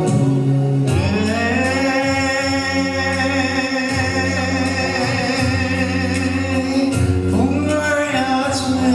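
Music from the song's introduction: a slow melody of long held, slightly wavering notes over steady low accompaniment, with a new phrase entering near the end.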